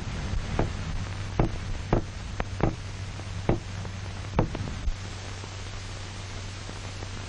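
Hiss and a steady low hum from an old film soundtrack, broken by about ten irregular sharp knocks or clicks during the first five seconds.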